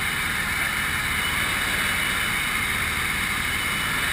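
A Grob light aircraft's piston engine and propeller droning steadily, heard from inside the cockpit, with a constant hiss over the top.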